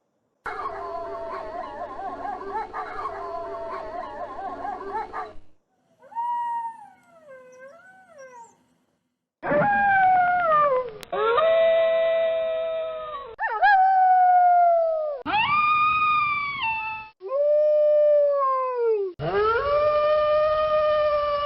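Wolves howling. First a pack chorus of many overlapping voices for about five seconds, then a few faint separate howls. From about halfway, a series of long single howls follows, each sliding down in pitch at its end.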